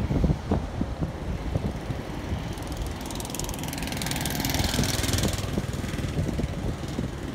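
Road traffic with wind rumbling and thumping on the microphone. About three seconds in, a vehicle's hiss with fast fine ticking rises, then fades out about two and a half seconds later.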